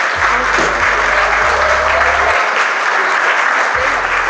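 Many people clapping in steady, sustained applause.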